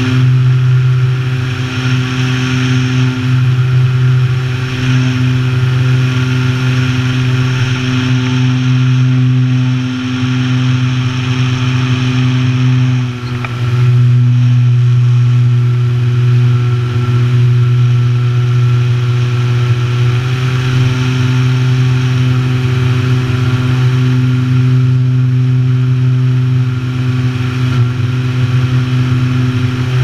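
Motor and propeller of an Apprentice S model airplane in steady cruising flight, heard from a camera on board: a constant low drone with a rush of air over it. The drone dips briefly about halfway through and shifts slightly in pitch a little later.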